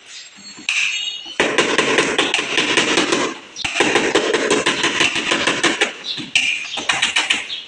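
Hammer striking a car's sheet-metal body panel in rapid repeated blows, several a second, during dent repair (panel beating), with a short break about three and a half seconds in.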